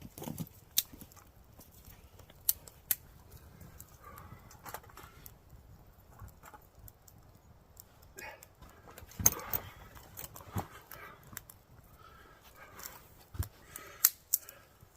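Irregular sharp clicks and knocks, about eight spread unevenly, with soft rustling in between.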